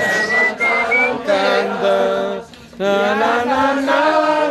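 A group of men and women singing a song together in a crowded room, with a short break for breath a little after halfway before the singing picks up again.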